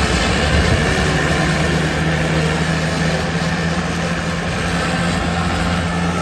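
A large bus's engine running steadily, with a constant low hum and rumble.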